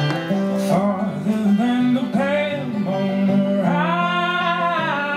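Live music with a plucked-string accompaniment on guitar and banjo. Over it runs a wordless melody line, with one long held phrase near the end.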